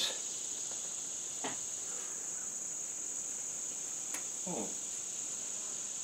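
Steady high-pitched chorus of insects, a continuous late-summer trilling drone, with a faint click about a second and a half in.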